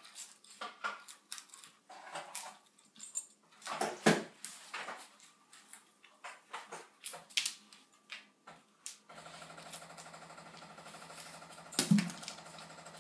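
A dog mouthing and tearing at a dropped onion on the floor: irregular crackles and sharp taps as the dry papery skin comes away. About nine seconds in a steady mechanical hum starts, and there is one loud knock near the end.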